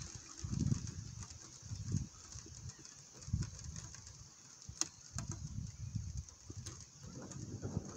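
Thunderstorm rain falling steadily as a continuous hiss, with irregular low rumbling swells about every second and a couple of sharp ticks of drops around the middle.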